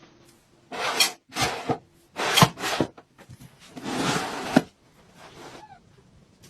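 A tool scraping across wood in four strokes, each lasting from about a third of a second to about a second, the last one the longest.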